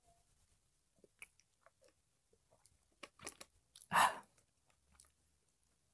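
Faint mouth and throat noises from a man with a dry, hoarse throat: scattered small clicks and smacks, then a louder short throat noise about four seconds in.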